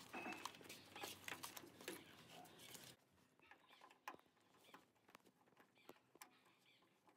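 Near silence, with faint scattered clicks and rustling in the first three seconds and a few faint ticks after: wires being handled and screwed into an inverter's terminal block.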